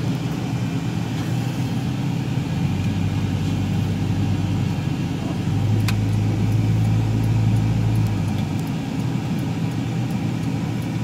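Car driving on a road, heard from inside the cabin: a steady drone of engine and tyre noise. The low hum grows stronger for a couple of seconds midway.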